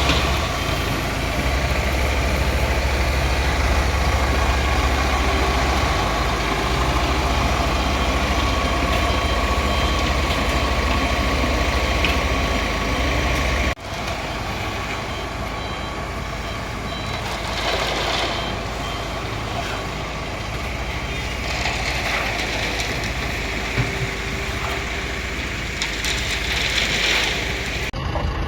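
Concrete mixer (molen) machine running steadily with a strong low hum, broken off sharply about 14 s in and then running on. Short, high, intermittent beeps sound in the second half.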